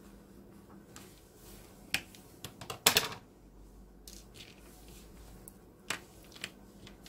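Close hand-handling noise of a paper tissue and a small metal earphone plug: a few sharp clicks and rustles, the loudest a short cluster about three seconds in, then two lighter clicks near the end.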